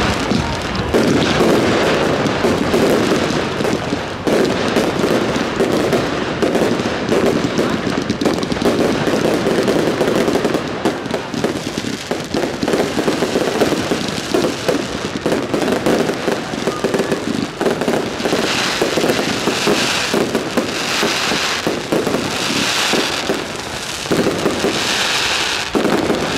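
Fireworks display: a dense, continuous barrage of bangs and crackling from bursting aerial shells. In the last third, sharper high crackling pulses repeat about every second and a half.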